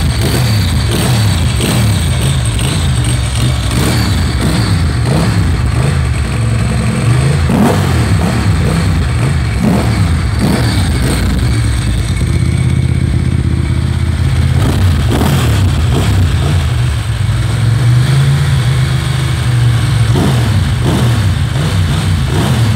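Ducati 900 SS i.e. air-cooled 904 cc desmo L-twin running on a stand through a Termignoni carbon silencer. It idles with a steady beat, and the revs swell up and fall back several times as the throttle is blipped.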